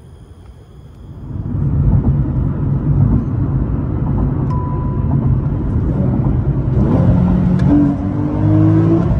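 Nissan 370Z's V6 engine being pulled hard under acceleration. It jumps from a low hum to a loud, deep rumble about a second in, then holds, and its pitch climbs slightly near the end.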